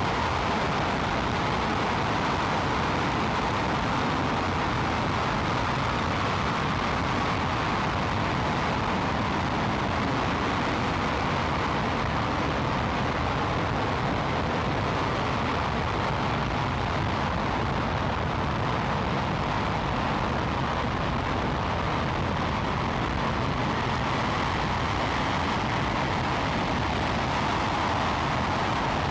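Space Shuttle Main Engine (a liquid-hydrogen, liquid-oxygen rocket engine) firing on its test stand, a steady, unbroken rushing noise that neither rises nor falls.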